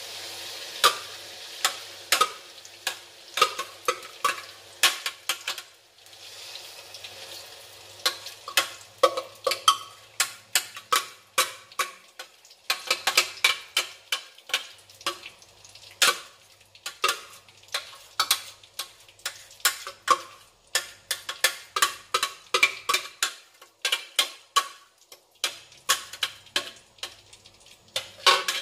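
Ground chili paste sizzling as it drops into hot cooking oil in a pan, with many irregular sharp taps and scrapes of a metal spoon knocking the paste out of a plastic food-chopper bowl and against the pan. The sizzle is loudest in the first couple of seconds and again around six to eight seconds in.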